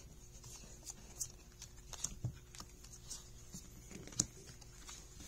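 Magic: The Gathering cards being handled and set down on a playmat: scattered faint taps, flicks and rustles, with one sharper tap about four seconds in.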